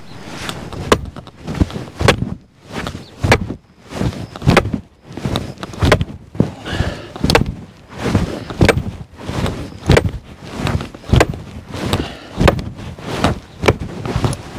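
Repeated hammer blows driving a stake into the ground beside a raised garden bed: a steady series of sharp knocks, each with a dull thud, about one and a half a second.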